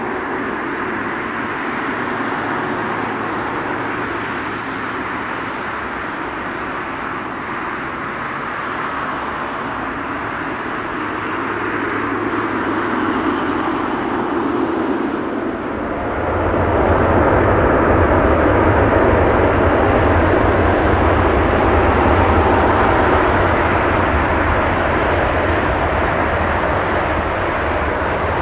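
Boeing 777-300ER's GE90-115B turbofan engines running steadily as the airliner moves on the ground, then spooling up about halfway through to takeoff thrust, much louder with a deep rumble added.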